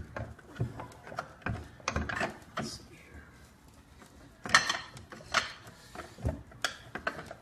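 Scattered metal clicks and knocks from a hand-turned bearing puller and the steel side cover of an e-bike hub motor as the cover is worked loose, with a few louder clanks a little past the middle.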